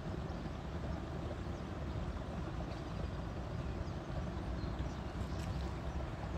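Steady low rumble of wind buffeting the microphone, with no clear mechanical rhythm or tone.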